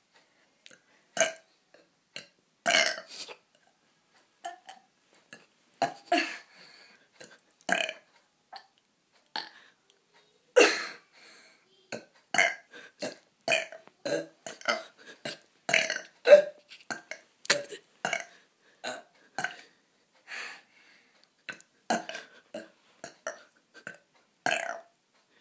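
A person burping over and over: dozens of short, separate burps with brief silent gaps between them, coming faster from about ten seconds in.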